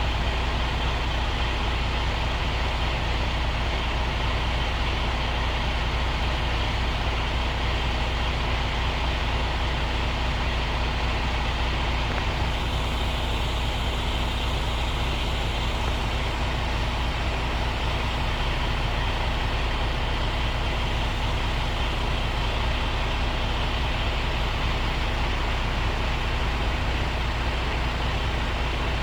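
Truck's diesel engine running steadily at an even pitch, with a deep low hum and a steady tone.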